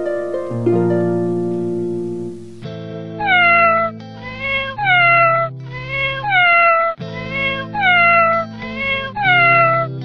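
Gentle plucked harp-like background music, joined about three seconds in by a kitten meowing over and over, about one short meow a second.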